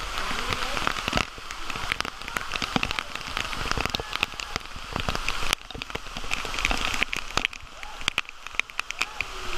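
Artificial rain falling steadily from overhead in a cave, a dense hiss with many sharp drops hitting the camera directly.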